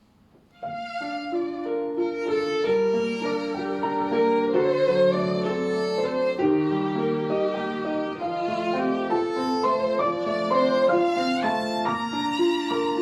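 Instrumental song introduction: a violin melody with vibrato over sustained lower notes, starting about half a second in.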